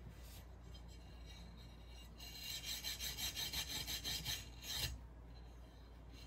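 3M Scotch-Brite stainless steel scrubbing pad rubbed back and forth along the edge of a fused glass panel: a faint scratchy rasp, louder for a couple of seconds in the middle. It is smoothing off the little rough burrs left where clear powder sat between the glass layers.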